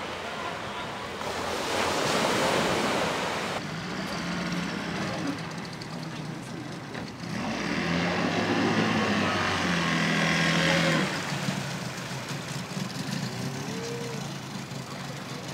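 Small outboard motor on a wooden fishing skiff running with a steady low tone, louder for a few seconds in the middle as the boat pulls away and throws up a wake. Before the motor comes in, a few seconds of rushing noise.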